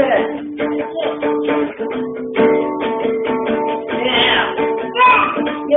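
Acoustic guitar strummed in a quick, steady rhythm, about five strokes a second, on a repeating chord.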